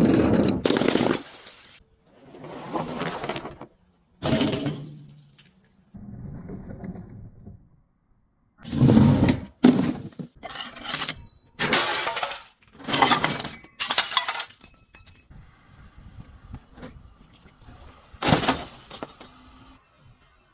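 Glass bottles breaking in a series of about ten separate crunching, shattering crashes, some followed by brief bright ringing of glass pieces.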